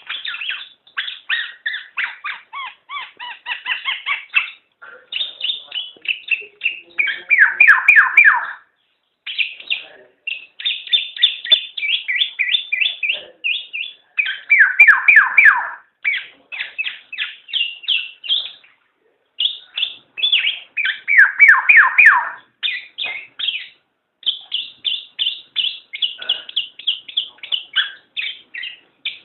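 Black-naped oriole (kepodang) calling in long runs of rapid, chattering notes, with three louder bursts of harsh downward-sweeping notes, about 7, 15 and 21 seconds in.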